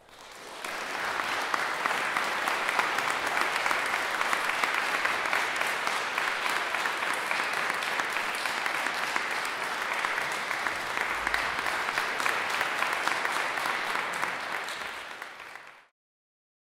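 Audience applauding: clapping swells within the first second, holds steady, and fades and cuts off near the end.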